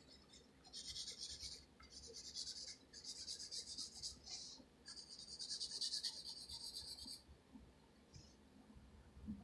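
Wooden pencil scratching across paper in quick back-and-forth shading strokes, in several runs of a second or two with short pauses between them. It stops about seven seconds in.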